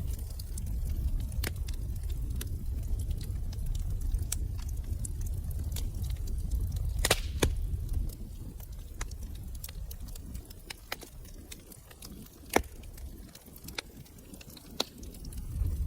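Wood fire crackling in a fireplace: irregular sharp pops and snaps over a low rumble of burning. The rumble eases off in the second half, with one sharper pop about three-quarters of the way through.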